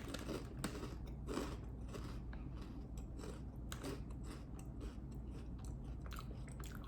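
A person chewing crunchy pickled-onion flavoured snack chips close to the microphone, a steady run of irregular crunches.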